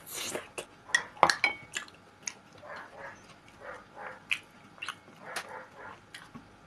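Close-miked chewing of a mouthful of pelmeni with sour cream, full of wet lip smacks and sharp mouth clicks, after a spoonful is taken into the mouth at the start.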